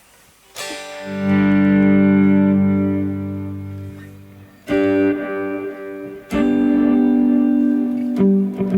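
Electric guitar (Telecaster) played through a Strymon BigSky MX reverb pedal on its "Dark Climb" preset: a few sustained chords, the first swelling up after it is struck and ringing out long in a thick reverb wash, with new chords struck about halfway through and again near the end.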